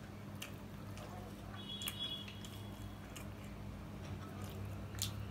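Knife and fork clicking faintly against a plate a few times while cutting a pancake, over a steady low hum.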